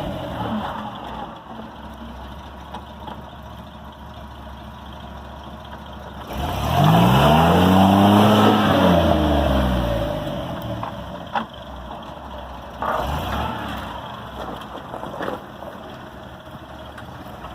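An off-road vehicle's engine running low, then revving up and back down for about four seconds starting about six seconds in, with a shorter rev near thirteen seconds in. Two sharp knocks stand out, one about eleven seconds in and one about fifteen seconds in.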